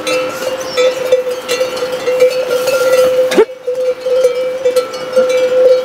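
Bells on laden pack animals ringing as the animals walk, one steady ringing tone with small clanks throughout and a brief break near the middle.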